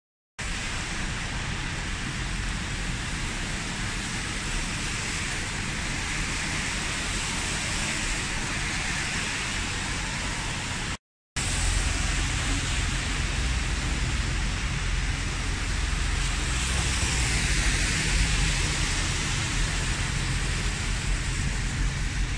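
Traffic on a rain-wet city street: a steady hiss of rain and tyres on the wet road over a low rumble of engines. The hiss swells for a few seconds near the end as a car passes. The sound drops out briefly about halfway.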